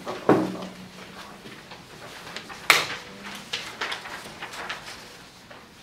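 Sheets of paper being picked up and handled on a desk: rustling with a few short knocks and taps, the sharpest snap about three seconds in.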